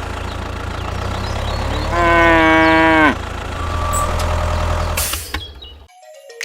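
Steady low mechanical hum. About two seconds in, a loud held pitched call lasts about a second and drops in pitch as it ends, and a short hiss comes near five seconds. The hum cuts off near the end.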